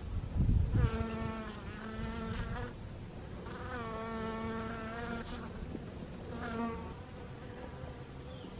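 Honeybees buzzing as they fly close past the microphone, in three passes: two of about two seconds each, a short third one near the end. The pitch wavers slightly. A brief low rumble comes just before the first buzz.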